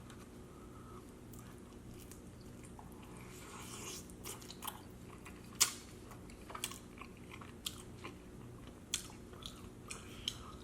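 Close-miked mouth sounds of a person eating chicken wings: chewing with sharp wet smacks and clicks, sparse at first and coming every second or so from about a third of the way in, the loudest about halfway through. A low steady hum runs underneath.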